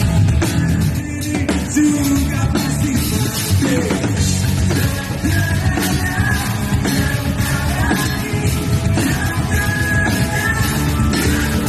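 Live rock band playing loudly at a sound check, drum kit driving a steady beat under guitars, with a voice singing over it.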